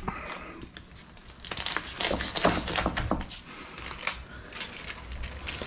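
Aluminium foil crinkling and crackling as a chef's knife saws through a foil-wrapped sandwich on a wooden cutting board, busiest from about one and a half to three seconds in.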